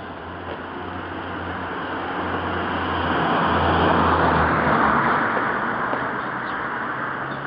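A car passing close by on the road: its tyre and engine noise swells to a peak about four seconds in and then fades, over a low steady traffic hum.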